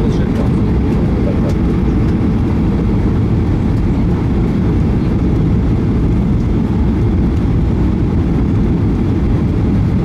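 Steady low roar of a jet airliner's engines and rushing airflow heard inside the cabin on final approach, with the wing flaps extended.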